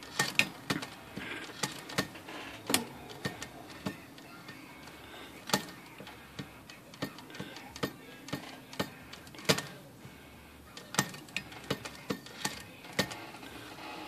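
Manual typewriter mechanism clicking and clacking irregularly, a sharp click every half second to a second with a few louder knocks, as its jammed carriage is worked by hand to find where it binds.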